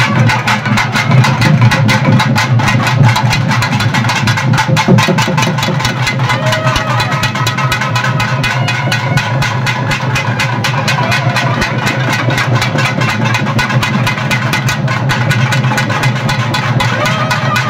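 Traditional festival music: fast, steady drumming with sustained tones over it.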